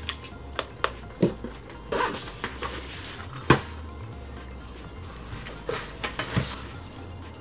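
Hard items being handled and set down while an insulated lunch bag is packed: scattered knocks and clicks of a lunch box and frozen-solid juice pouches against the table and inside the bag, the sharpest knock about three and a half seconds in. Light background music runs underneath.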